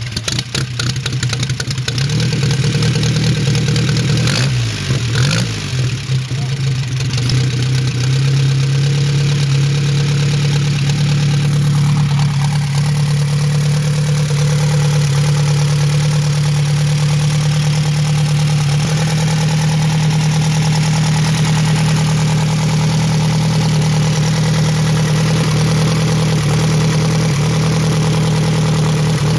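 A large old engine starting up and settling into a steady idle: a deep, even hum with a regular beat of firing strokes.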